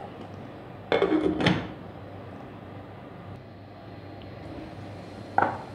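Covered aluminium pan of grated pumpkin simmering on a gas stove, giving a steady low hiss. A short clatter, typical of the glass lid being set on the pan, comes about a second in and rings off over half a second, and a brief knock follows near the end.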